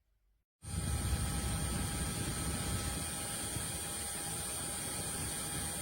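Diveblues Turbo handheld fan running at speed: a steady rush of air with a high whine, starting abruptly about half a second in and cutting off suddenly at the end.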